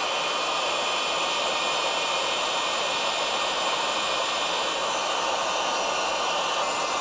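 Heat gun blowing steadily with a faint whine from its fan, heating a brass threaded insert so that it can be melted into 3D printed plastic.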